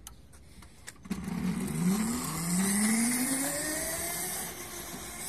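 Kunray 3000 W 72 V brushless electric go-kart motor pulling away from a standstill in its medium power mode. A whine starts about a second in and rises steadily in pitch for about three seconds as the kart speeds up, then fades as it moves off. A few faint clicks come before it.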